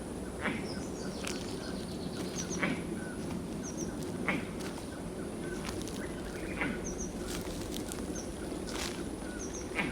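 Footsteps along a trail, one about every two seconds, with short high double chirps of birds in the background over a steady low hum.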